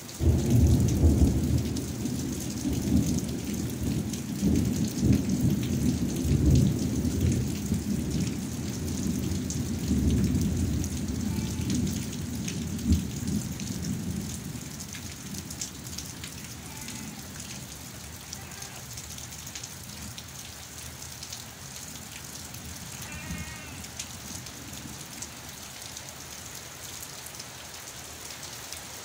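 Thunder breaks suddenly and rumbles low for about fifteen seconds before dying away. Steady rain hisses underneath throughout.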